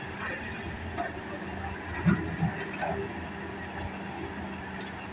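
Hitachi excavator's diesel engine running steadily, with a few sharp knocks about two seconds in.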